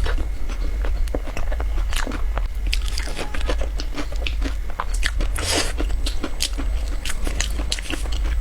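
Close-miked crunching and chewing of a pumpkin biscuit: irregular sharp crunches as it is bitten and chewed, over a steady low hum.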